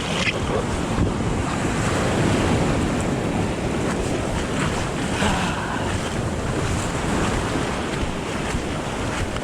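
Surf and water rushing around a kayak's hull as it rides in on a small wave, with wind on the microphone.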